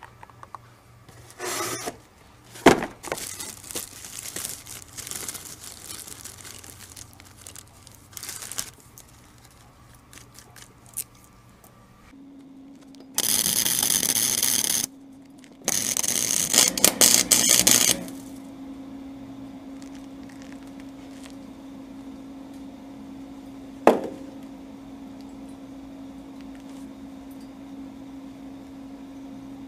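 Light clinks and scraping of steel pieces being handled, then two loud bursts of welding-arc crackle of a few seconds each with a short gap between them. A steady low hum runs from the first arc onward, and a single sharp click comes near the end.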